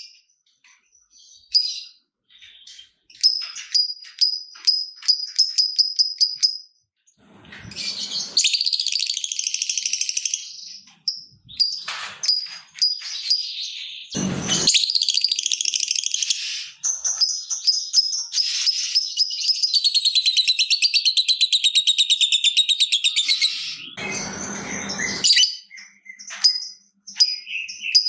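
Lovebird chattering: runs of rapid high 'ticking' chips, then a long fast rattling trill ('ngekek') held for several seconds in the second half. A few short noisy bursts break in between.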